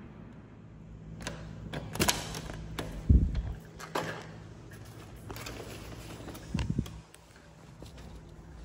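A series of knocks and clicks and a few dull thumps, the loudest about three seconds in, over a steady low hum.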